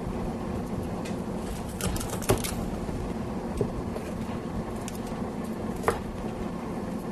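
Chef's knife cutting broccoli into florets on a plastic cutting board: a few scattered sharp taps of the blade meeting the board, the clearest a little after two seconds in and near six seconds, over a steady low background hum.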